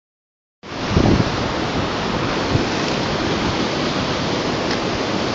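Rushing river water pouring over rocks, a steady dense hiss that starts about half a second in, with a few dull bumps around a second in.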